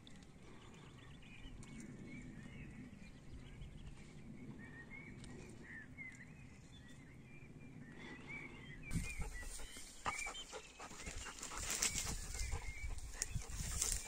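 Small birds chirping faintly over a low outdoor rumble. About nine seconds in, the sound changes abruptly to louder wind rushing over the microphone, with scattered knocks.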